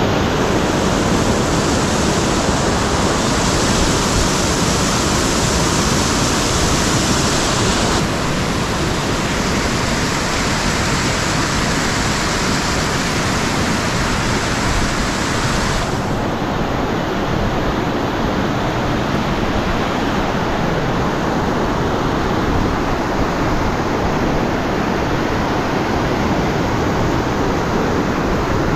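A fast river rushing, a loud steady wash of water whose tone shifts abruptly about eight and sixteen seconds in.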